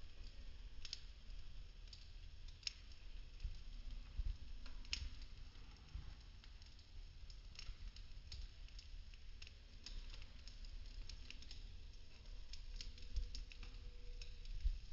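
Popsicle-stick wood burning, crackling and popping in irregular sharp snaps over a low rumble of flame.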